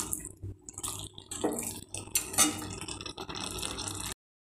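Steel spatula stirring and scraping thick chicken masala in a metal pan: irregular scrapes and clinks of metal on metal. The sound cuts out completely near the end.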